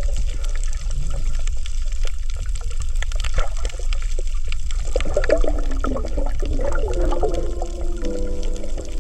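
Underwater coral-reef sound: a steady low water rumble under a dense crackle of small clicks, the 'michi-michi' sound the uploader has heard is the coral breathing. About five seconds in, warbling gurgles come and go.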